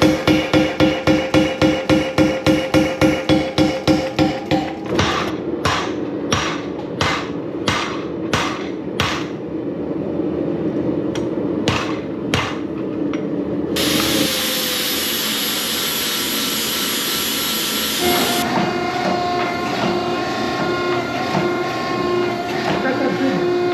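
Power hammer striking a hot Damascus billet to draw it out: a fast, even run of about four to five blows a second, then slower blows about two a second, over a steady motor hum. Later a loud steady hiss runs for about four seconds and cuts off.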